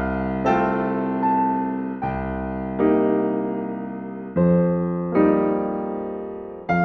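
Background music: slow, soft piano chords, each struck and left to ring and fade before the next.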